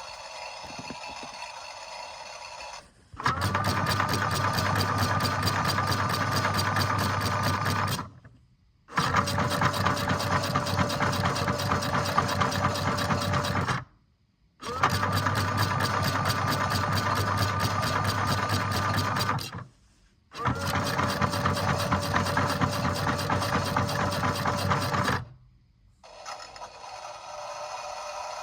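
Washing machine motor turning the drum in four runs of about five seconds each, stopping for a moment between runs and starting up again with a steady whine, as in a wash cycle.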